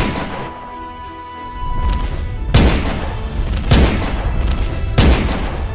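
Four pistol-shot sound effects, one at the start and three more from about two and a half seconds in, a little over a second apart, each booming with a tail, over background music. A steady high tone cuts off about two seconds in.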